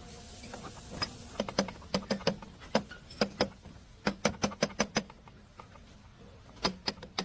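A run of quick, sharp clicks and taps in irregular bunches, with a pause of about a second and a half near the end.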